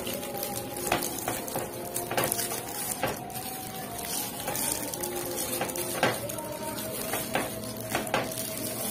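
Plastic-gloved hands handling food on a plastic tray: scattered light clicks and taps as pieces of beef patty are broken off and placed on a mini pizza base.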